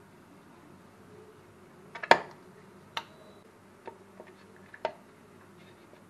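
Glass mixing bowl clinking and knocking against a stone surface as it is handled and moved: a handful of sharp clicks, the loudest about two seconds in, then four lighter ones.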